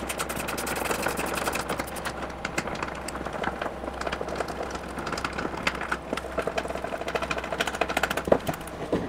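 Rapid, continuous clicking and rattling of a hand tool and metal parts being worked on a car's frunk latch assembly, the clicks fastest in the first couple of seconds.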